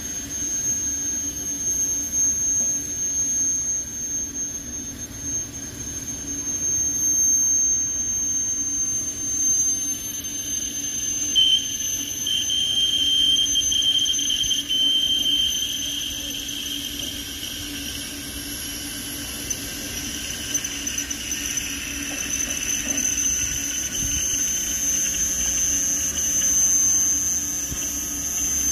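Hand-pushed railroad turntable carrying a steam locomotive, its wheels squealing steadily on the rail as it turns. A second, lower squeal joins about a third of the way in and carries on alongside the first.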